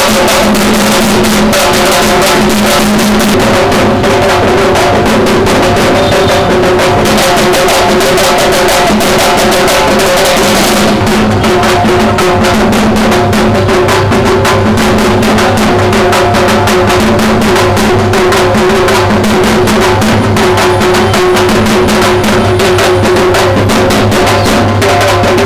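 Loud, fast, continuous drumming with held melodic notes sounding over the beats. It matches the festival drummers playing large barrel drums.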